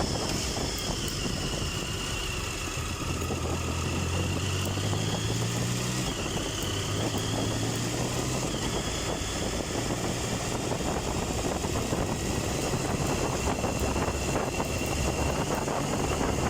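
Triumph Tiger 1050's three-cylinder engine running at low, steady revs under wind noise on the microphone. Its hum is clearest for a few seconds in the first half, then sinks into the wind.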